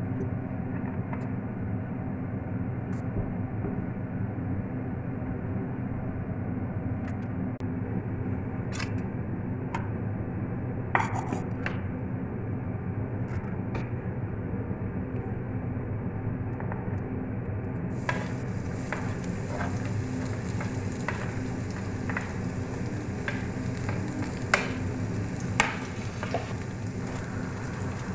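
Chopped garlic frying in hot oil in a steel pan: a sizzling hiss sets in about two-thirds of the way through, with a few sharp clicks of a utensil against the pan. A steady low hum runs underneath.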